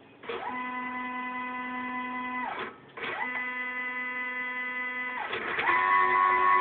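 Stepper motors driven by a Gecko G540 drive, singing at a steady pitch while jogging: two moves of a couple of seconds each with a short pause between, then a louder move at a different pitch near the end. Each move starts and stops with a brief slide in pitch as the motors speed up and slow down.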